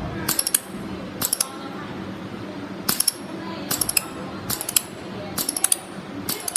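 Pulsed mould laser welding machine firing short bursts of pulses: sharp metallic snaps in groups of two to five, about one group a second, over a steady low hum.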